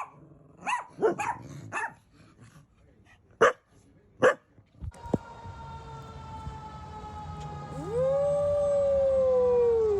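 Dog giving a run of short barks and yips, then about eight seconds in one long howl that rises and then slowly falls. From about five seconds in a faint steady tone slides slowly down in pitch behind it.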